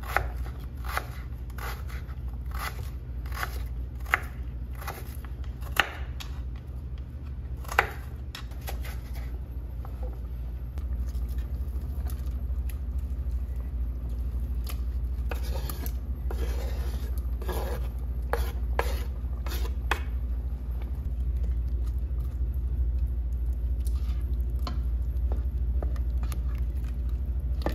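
Kitchen knife chopping an onion on a wooden cutting board in regular strokes, about one or two a second, for the first nine seconds or so. A few seconds later come scrapes and knocks as the chopped onion is scraped off the board into a metal saucepan, over a steady low hum.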